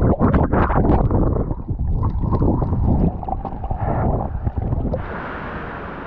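Water sloshing and bubbling against an action camera's housing at the surface while swimming, with many small knocks and crackles. About five seconds in this changes suddenly to a steady hiss of surf and wind.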